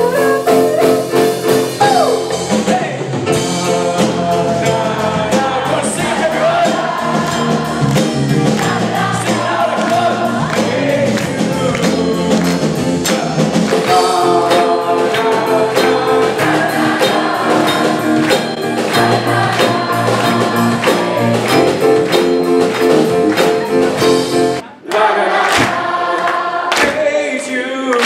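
Live rock band music, with electric guitars, drums and keyboard, and many voices singing a chorus together. The sound drops out abruptly about 25 seconds in, then picks up again.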